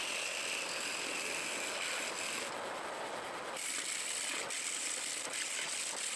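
Turning gouge cutting into a spinning cumaru wood blank on a lathe: a steady scraping hiss of shavings being cut, its tone shifting slightly a little past halfway.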